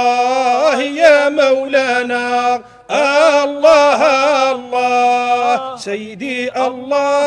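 A man's solo voice in Sufi devotional chant, holding long notes with ornamented melismatic turns. There is a short breath pause about three seconds in and a softer, lower phrase near the end.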